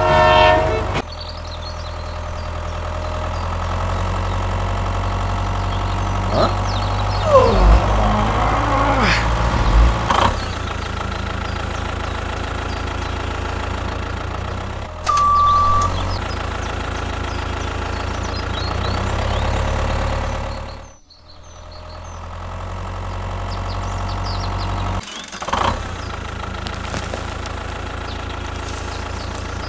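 Tractor engine running steadily at idle, with a low even chugging. It opens with a short whistle, a single beep sounds about halfway, and the engine sound cuts out briefly about two-thirds of the way through.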